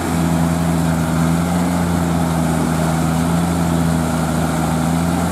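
Diesel engine of an Escorts Hydra mobile crane running at a steady, unchanging speed.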